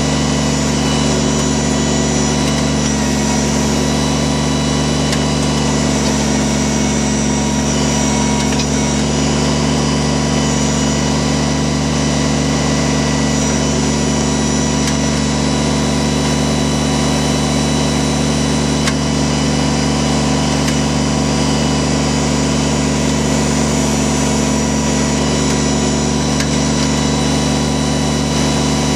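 Kubota BX24 tractor's three-cylinder diesel engine running steadily while it works the backhoe.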